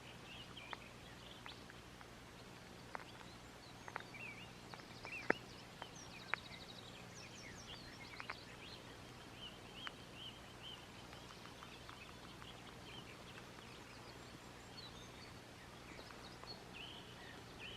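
Faint open-air quiet with small birds chirping and trilling now and then, and a few light clicks, the sharpest about five seconds in.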